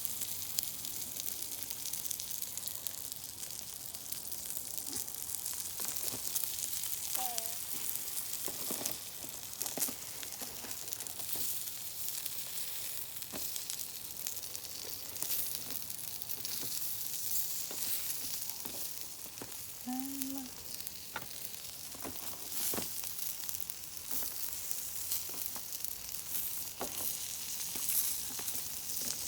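Bratwurst and other meat sizzling on a hot grill: a steady hiss with frequent crackles and pops.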